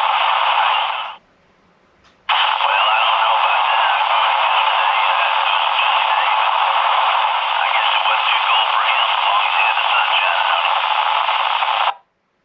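Uniden BCD436HP scanner's speaker giving out a loud, hissing, static-filled transmission with no clear words, squeezed into a narrow radio-speaker range. It cuts out about a second in, comes back a second later, and stops abruptly near the end as the squelch closes.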